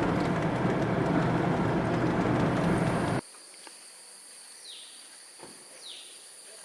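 Steady rumbling road and engine noise of a moving vehicle, cut off suddenly about three seconds in. What follows is a quiet outdoor scene with a steady high-pitched insect drone and two short, falling bird chirps.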